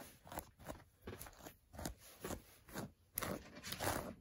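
A hairbrush pulled through a doll's tangled hair: a string of short, scratchy brushing strokes, about two or three a second.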